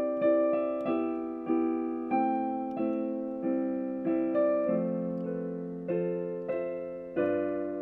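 Piano playing a slow introduction to a song, a chord struck about every half second and left to ring and fade.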